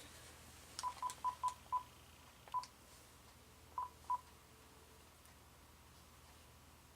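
Telephone keypad beeps as a number is dialled: eight short beeps, all at one pitch. Five come in quick succession, then one more, then two, all within the first four seconds or so.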